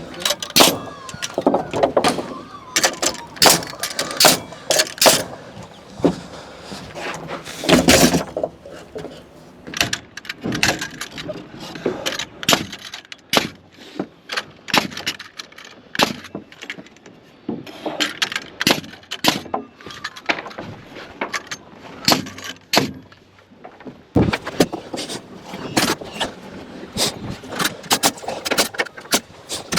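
Timber wall framing: a long, irregular series of sharp knocks and bangs from nailing and timber being handled.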